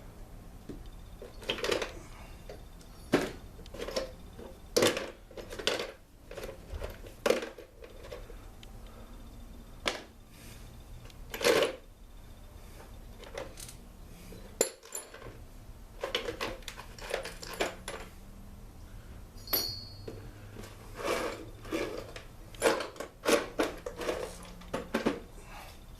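Small metal parts clinking, tapping and knocking as the muffler and its bolts are handled and fitted onto a Stihl BG85 leaf blower's engine: a long run of irregular clicks and clinks.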